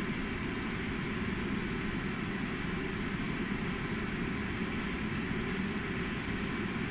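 Steady workshop background noise: an even low rumble and hiss with no distinct events.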